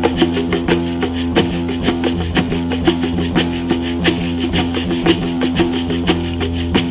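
Meditative sound-healing music: a sustained low drone under plucked string notes, with a steady rattling percussion beat of about three strokes a second.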